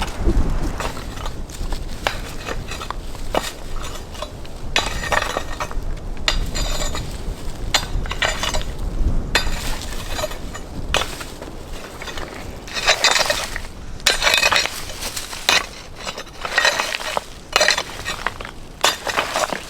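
Stones being worked and handled: a run of sharp clinks and knocks with scraping, growing busier in the second half.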